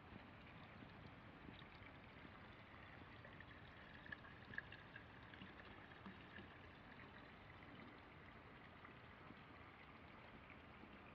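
Near silence: faint outdoor ambience with a few tiny scattered ticks.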